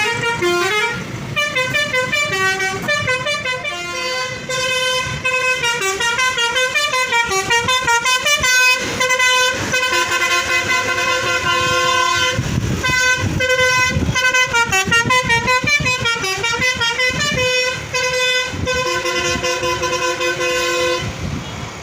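Bus's Basuri telolet horn playing a long multi-note tune, its notes switching quickly between pitches in a repeating melody.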